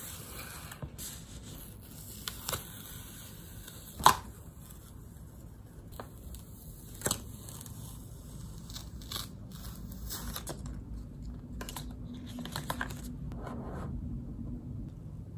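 Paper sticker sheets and cut-away paper waste being peeled off a sticky plastic cutting mat: a crackling, tearing peel with scattered sharp snaps, the loudest about four seconds in.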